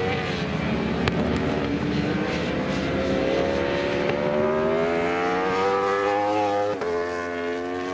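Superbike engine running at high revs, its pitch climbing steadily for several seconds, then a brief break near the end before it carries on at a lower pitch.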